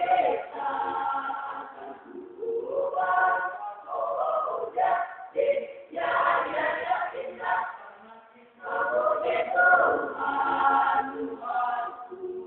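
Youth choir singing together in sung phrases, with short breaks between them.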